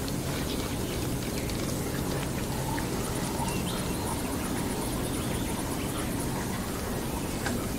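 Steady rush of fast-flowing floodwater, with a few faint bird chirps on top.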